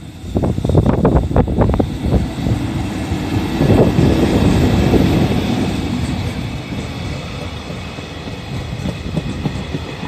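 Freight train hauled by an EF65 electric locomotive rolling past at reduced speed. A quick cluster of wheel clacks over the rail joints comes in the first two seconds, then a steady rumble of wheels on rail peaks about four seconds in and slowly eases off.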